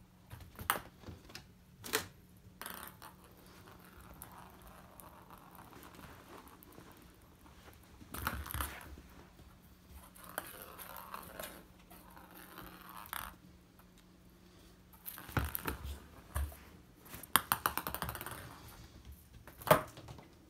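A cat batting a small ball around: scattered sharp clicks and knocks of the ball hitting the floor and door, the loudest near the end, between stretches of scratchy scrabbling of paws and claws on the mat and floor.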